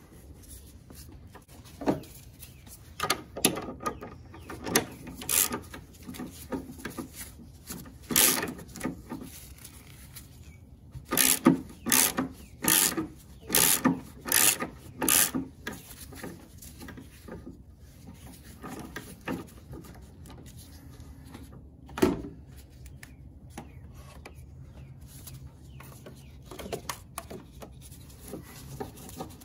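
Hand ratchet with a 15 mm socket on an extension, clicking in repeated rasping strokes as it backs out the upper engine mount nuts. A run of loud strokes about a second apart comes around the middle, and one sharp one comes later.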